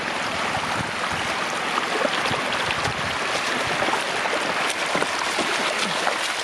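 Floodwater running steadily over a road, a continuous rushing flow with small splashes scattered through it.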